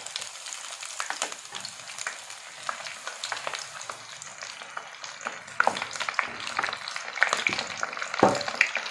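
Egg-and-breadcrumb-coated chicken drumsticks deep-frying in hot oil in a wok: a steady sizzle full of sharp crackling pops, which grow louder and thicker in the second half.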